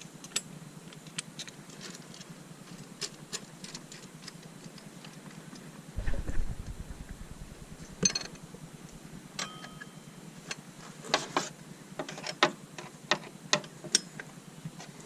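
Hand tools clicking and tapping on the metal of a power steering pump and its pulley, in irregular small clicks. There is a single low thump about six seconds in, and a cluster of quicker clicks near the end.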